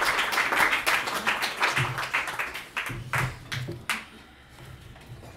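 Small audience applauding, the claps thinning out and dying away about four seconds in.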